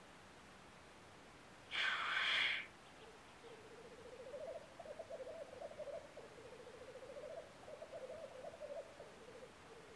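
Male black grouse displaying in spring: one loud hissing 'sneeze' call about two seconds in, then the low, dove-like bubbling rookooing song, rapidly pulsed and rising and falling in long phrases.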